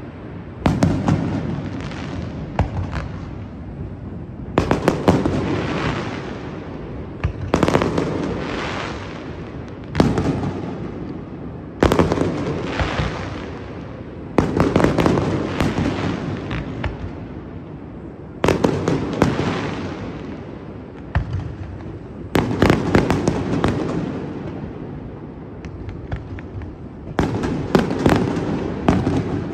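Aerial fireworks display: shells bursting with a sharp bang every two to four seconds, each followed by a long rumbling tail. Several bursts carry clusters of quicker pops and crackles.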